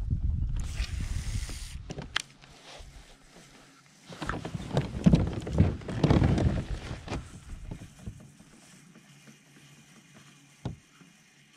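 Handling noise in a plastic kayak: rustling, knocks and low rumble with a few sharp clicks, loudest from about four to seven seconds in, then quieter.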